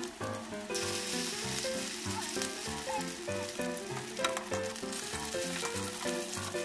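Dulong fish fritters (okoy) frying in shallow oil in a wok, sizzling, the sizzle swelling about a second in. Background music with a steady beat plays underneath.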